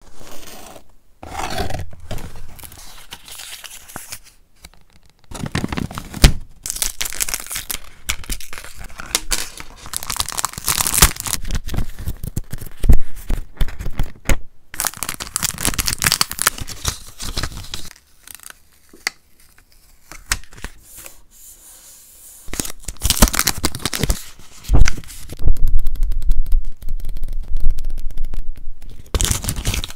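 Packaging and paper handling: packing tape on a cardboard box slit with a pen-style cutter, then sheets of paper rustling and crinkling as they are handled, and the pages of a small journal flipped near the end. The sounds come in bursts, with a quieter spell about two-thirds of the way through.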